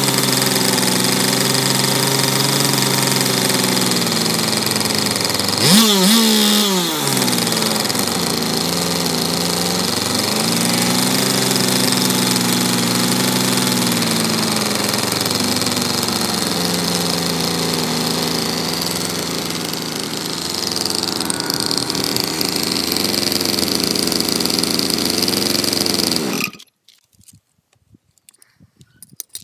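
An engine running steadily, revved once sharply about six seconds in and swelling in pitch a few times, then cut off suddenly near the end, leaving only faint clicks.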